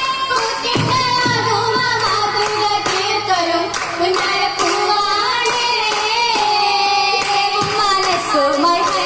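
Group of girls singing an oppana (Mappila) song in chorus, with hand-clapping.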